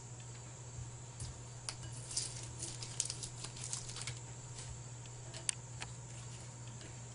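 Masking tape being peeled off a freshly painted pipe wrench handle and crumpled: a run of small crinkles and light ticks, clustered between about one and six seconds in, over a steady low hum.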